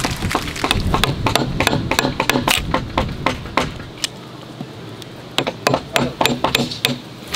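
Steel hammer striking a wood chisel, chopping out a joint notch in a timber beam: quick sharp blows about three a second, a pause of about a second and a half just past the middle, then the blows resume.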